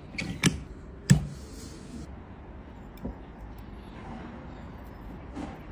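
A few sharp clicks and taps from small tools and phone parts being handled during an iPhone repair, the loudest about a second in, followed by a brief hiss.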